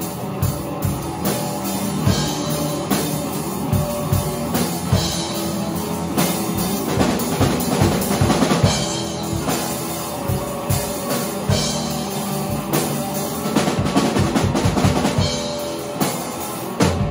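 Small rock band playing live: drum kit, electric guitar and electric bass, with the drums standing out in steady hits throughout.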